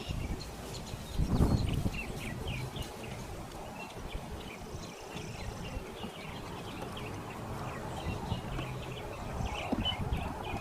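Small birds chirping over and over, with a low rumble underneath and a single thump about a second and a half in.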